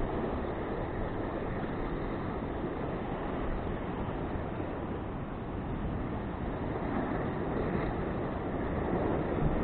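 Sea surf washing over and against the rocks in a steady wash, with wind buffeting the microphone.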